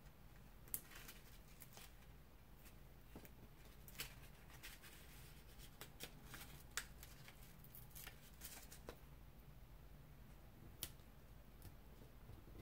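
Near silence with faint, scattered clicks and rustles of paper and foam tape being handled and pressed down, a few sharper ticks among them.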